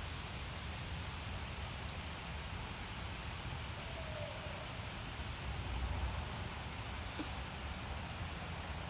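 Night-time forest ambience heard from inside a tent: a steady hiss with a low rumble underneath, and a faint, brief call about four seconds in.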